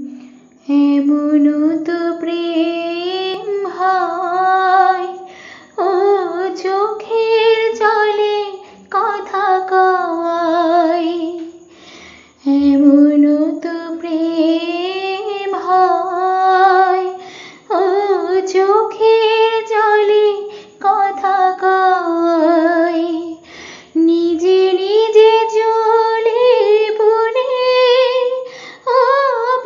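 A woman singing a Bengali song solo and unaccompanied. Her phrases last a few seconds each, with vibrato on the held notes and short breaths between the lines.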